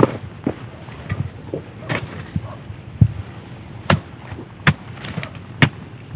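Metal spade chopping into dry clay soil to dig out a burrow: a series of irregular sharp strikes, roughly a second apart, with crumbling earth between them.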